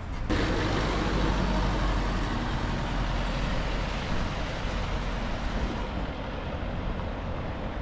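Steady road traffic noise from cars and a double-decker bus on a busy bridge, heard while cycling along it, with a low rumble from wind on the microphone.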